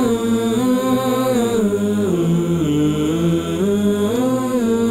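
Background vocal music: a wordless voice chanting in long held notes that slide smoothly from one pitch to the next.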